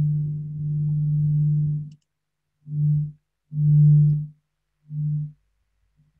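Low electrical mains buzz on the audio line. It runs for about two seconds, cuts out abruptly, then comes back in three short bursts with silence between them.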